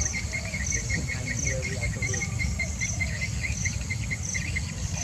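Insects chirping in the grass: a fast, even string of chirps, about six a second, with a higher-pitched pulse repeating a little more than once a second, over a steady low rumble.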